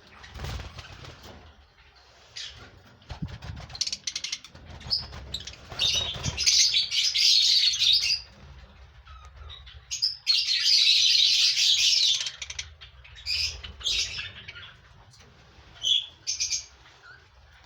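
African lovebirds chattering and screeching in shrill bursts, with two long, loud bouts of chatter in the middle and shorter calls around them.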